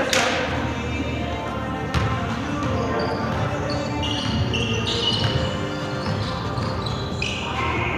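Indoor basketball game on a hardwood court: the ball bouncing and sneakers squeaking on the floor, with a sharp knock right at the start and another about two seconds in, and short high squeaks coming thick in the second half.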